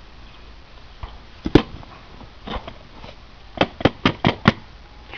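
Sharp knocks and clunks of a wooden sand-casting flask being worked loose and lifted out of packed sand in a metal box. There are a few scattered knocks, then a quick run of five near the end.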